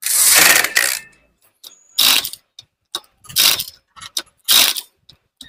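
Power impact wrench driving the clutch spring bolts of a Honda Twister's clutch tight: one burst of about a second, then three short bursts about a second apart.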